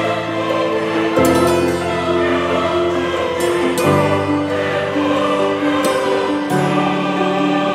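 Background music of slow, held chords that change every two to three seconds.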